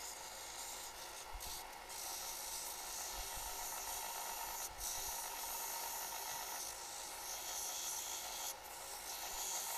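Small bench belt sander running while a plum-wood needle blank is ground against its belt: a steady hiss of abrasive on wood over the motor's hum.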